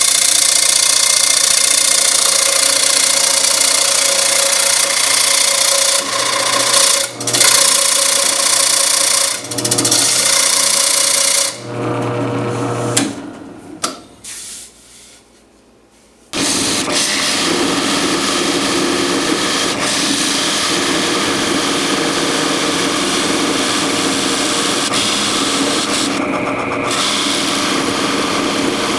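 Wood lathe spinning a maple blank while a turning tool cuts it, a steady loud hiss of cutting over the motor. About twelve seconds in the cutting stops and only a low motor hum is left, which fades to quiet; around sixteen seconds the lathe starts up again with the tool back on the wood.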